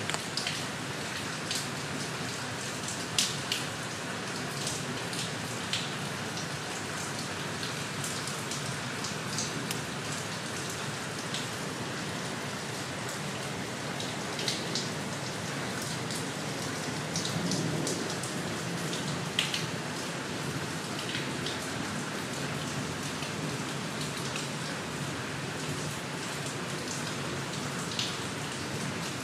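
Steady rain falling, an even hiss with scattered sharper drops ticking irregularly on nearby surfaces.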